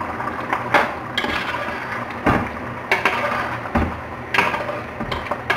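Ladle stirring a meat stew in an aluminium pot, with about eight sharp knocks and scrapes against the pot's sides.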